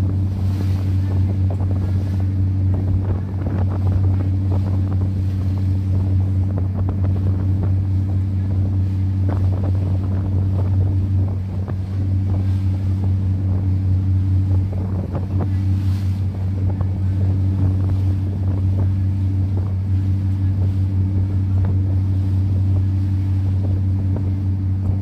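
Tour boat's engine running with a steady low drone, with wind buffeting the microphone and water rushing past the hull.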